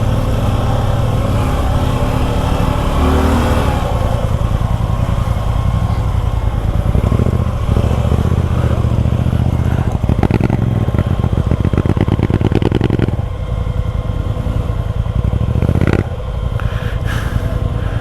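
Single-cylinder engine of a Suzuki V-Strom 250 SX motorcycle running under uneven throttle while riding a rough, sandy trail. Its firing pulses come through loudest in a stretch about ten to thirteen seconds in, and the level drops briefly twice.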